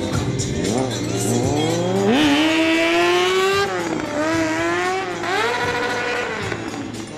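Kawasaki sport motorcycle's engine revving up and down in repeated rising and falling sweeps, held at high revs for about a second and a half around the middle.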